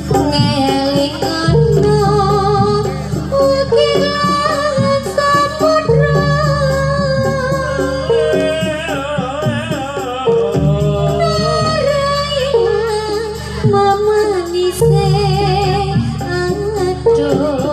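Javanese gamelan music accompanying a jaranan Pegon hobby-horse dance, with a singer's voice wavering in a long, ornamented melody over low sustained tones that stop and restart every few seconds.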